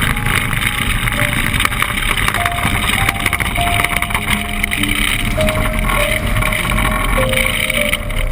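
Steady loud rushing vehicle noise, engine and wind together, with background music of slow held notes stepping in pitch over it.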